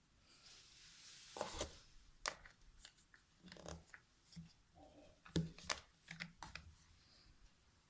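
Handling of a new iPhone and its packaging: a soft rustle, then a run of short clicks and light knocks.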